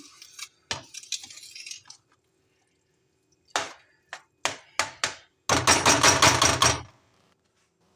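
Kitchen utensils knocking and clinking against a cooking pot: a few separate knocks, then a rapid clatter lasting about a second and a half near the end.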